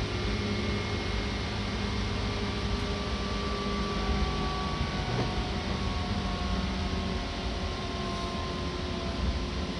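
Seibu Red Arrow limited express train heard from inside while running: a steady rumble of wheels on the rails with a hum from under the floor. A few faint whining tones drift slowly lower in pitch.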